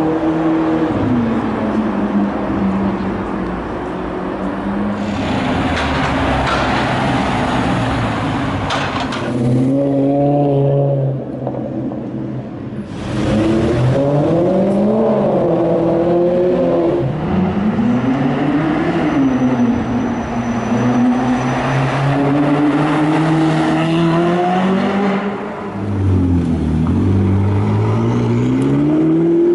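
A series of high-performance car engines revving and accelerating past one after another, the engine note repeatedly rising and falling in pitch. Near the end a McLaren MP4-12C accelerates, its note climbing.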